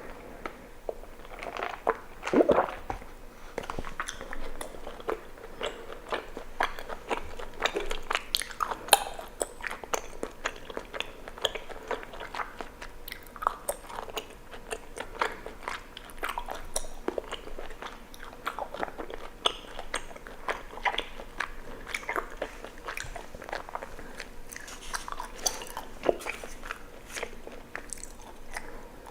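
Mouth sounds of someone eating bubble tea: chewing tapioca pearls, with many short wet clicks and smacks, several a second.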